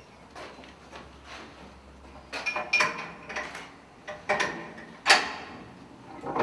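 Heavy steel bunker door's handle and locking levers being worked: a series of metallic clanks and latch clicks, some briefly ringing, the loudest about five seconds in.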